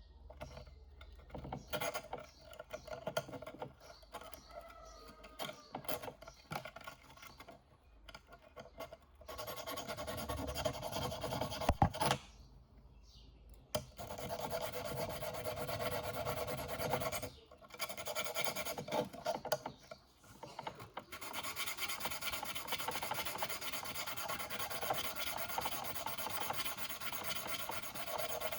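A small abrasive sharpening stone rubbing on the steel prongs of a Salvimar 14 mm three-prong paralyzer pole spear tip. It starts as short separate strokes, then runs in longer spells of steady scraping broken by brief pauses, with a sharp click about twelve seconds in.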